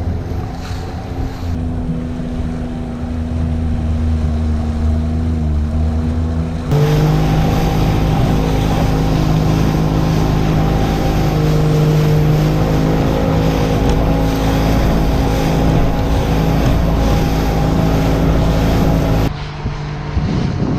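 Outboard motor of a small skiff running under way, with wind and water noise. About seven seconds in, the engine note jumps abruptly higher and louder, and it changes again near the end.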